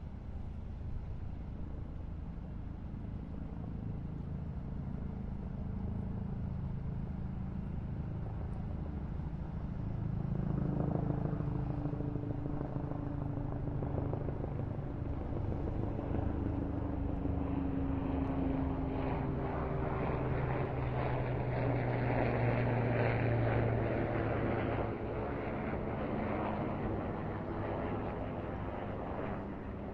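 Propeller aircraft flying past. Its engine drone grows louder to a peak about two-thirds of the way through, then fades, with its pitch sliding down as it passes.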